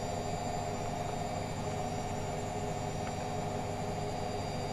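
Steady machine hum of a household appliance running, an even noise with several fixed tones that neither rise nor fall.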